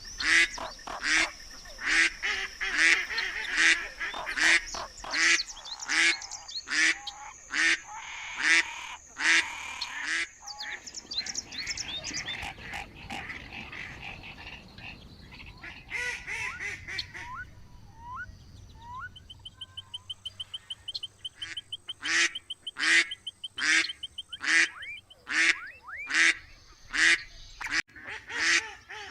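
Farm waterfowl calling over and over: short, loud quacking and honking calls in quick succession. The calls thin out in the middle, and a fast, high ticking trill comes in briefly before the calling picks up again.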